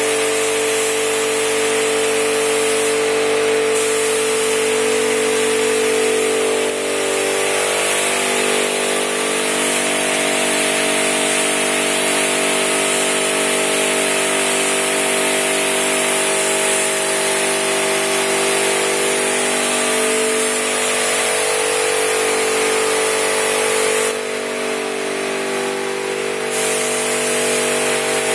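Gravity-feed paint spray gun hissing steadily as it lays clearcoat on a car, over a steady machine drone with several held tones. The sound drops a little for a couple of seconds near the end.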